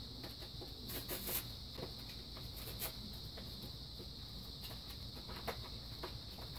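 Faint steady high-pitched chirring drone with a few scattered faint clicks and knocks, the most distinct about a second in.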